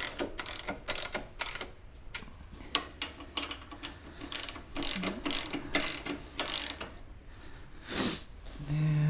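Hand socket ratchet clicking in short runs, about three clicks a second, as a motorcycle rear-shock mounting bolt is snugged down.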